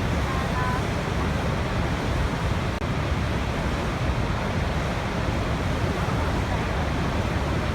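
Waterfall rushing steadily, a dense even wash of falling water heaviest in a low rumble.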